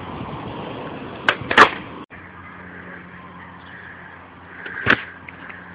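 Skateboard on an asphalt path, with two sharp clacks of the board against the ground about a second and a half in. After a cut, a low steady hum and a single sharp knock near the end.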